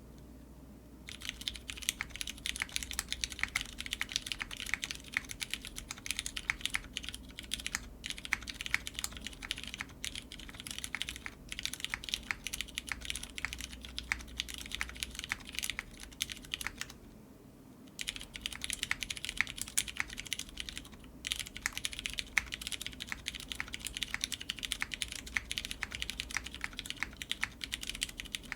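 Fast continuous typing on a mechanical keyboard with lubed Cherry MX Brown tactile switches on a polycarbonate plate and GMK keycaps, a dense stream of key clacks. It starts about a second in and stops for about a second past the middle before resuming.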